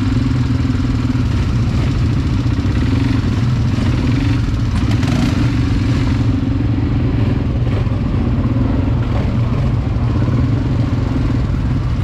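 ATV engine running steadily while being ridden.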